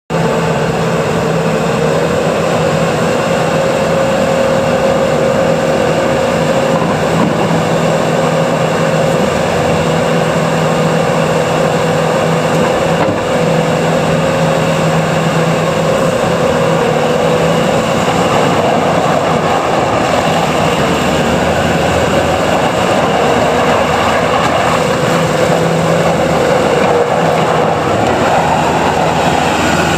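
Bobcat S770 skid steer's Doosan diesel engine running steadily, with a steady whine over the engine note.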